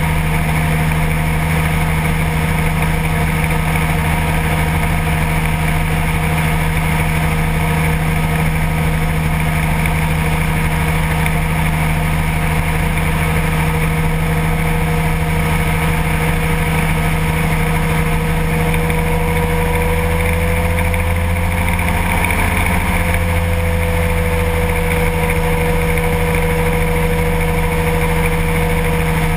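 Kolb ultralight aircraft's engine droning steadily in cruise flight, over a constant rush of airflow noise; the engine note shifts slightly about twenty seconds in.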